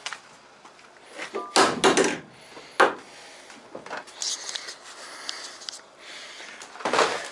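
Knocks and a clatter, then one sharp click, as a boxed snow-chain kit is handled and set down on a van's cargo floor. A rustle follows, and another clatter comes near the end.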